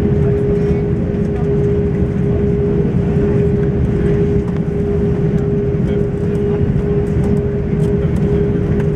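Cabin noise of an Airbus A340-600 taxiing, heard from a window seat over the wing: a steady low rumble from its four Rolls-Royce Trent 500 engines and the rolling airframe, with a steady mid-pitched hum over it.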